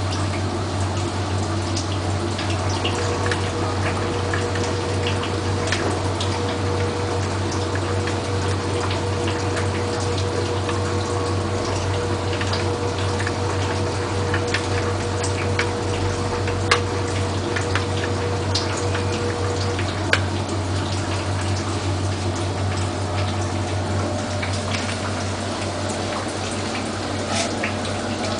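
Bosch washing machine running loaded, water sloshing and splashing over a steady low pump hum. A thin steady whine joins about three seconds in and stops around twenty seconds, with a couple of sharp ticks.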